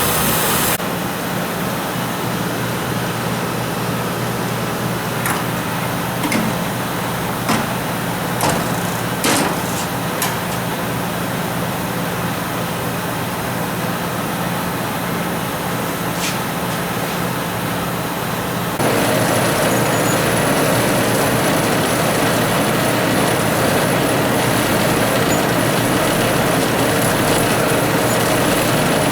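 Tire truing machinery running steadily with a low hum and a few sharp clicks. About 19 s in the sound changes abruptly to a louder, harsher steady running with a thin high whine.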